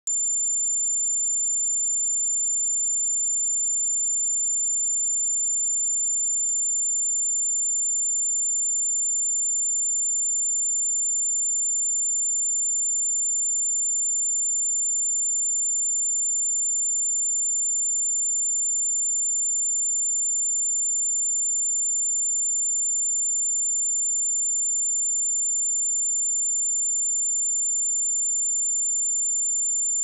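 A steady, high-pitched 7185 Hz sine-wave test tone: one pure tone held at a constant level.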